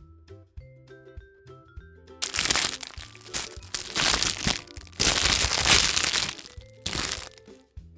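A surprise egg's wrapper crinkling and tearing as it is unwrapped, in loud noisy spells from about two seconds in until near the end, over background music with a vibraphone-like mallet melody.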